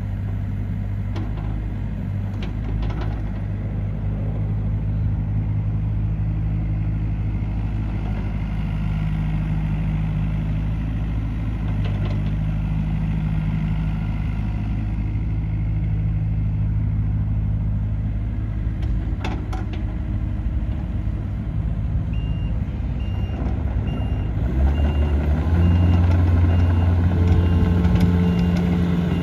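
Komatsu PC50MR-2 mini excavator's diesel engine running steadily, then rising in speed and getting louder a few seconds before the end. An evenly pulsing alarm beep joins shortly before the rise, as from a travel alarm.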